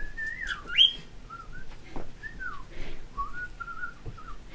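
Pet cockatiel whistling a string of short phrases, some held flat, some gliding up or down, with a sharp click about a second in.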